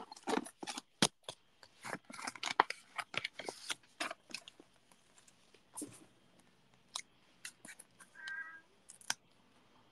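Cardstock and paper craft pieces being handled on a desk: rustling with irregular clicks and taps, quick and close together at first, then sparser.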